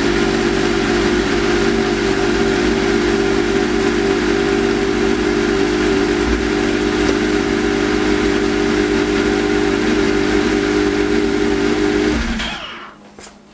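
Yamaha Venture snowmobile's four-stroke four-cylinder engine idling steadily after being jump-started from a dead battery, then shut off about twelve seconds in.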